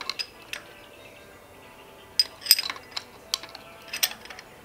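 Metal hand tools clinking against a Toyota 3B diesel's valve rocker arms: a wrench being fitted onto an adjusting-screw lock nut while a screwdriver sits in the screw, ready to loosen the nut for a valve lash adjustment. The clinks come singly and in small clusters, with a quick run of them about halfway through.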